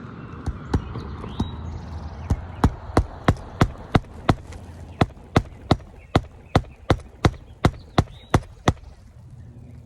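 Hammer striking on an asphalt shingle roof: a few scattered blows, then a steady run of about three blows a second with one short break, stopping near the end.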